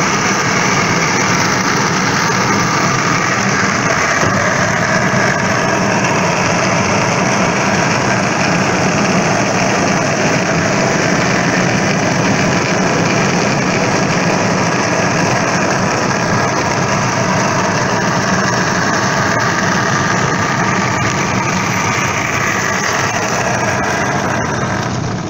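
Steel ball-bearing wheels of a wooden rolimã cart rolling down an asphalt street: a loud, steady grinding rumble that eases off near the end.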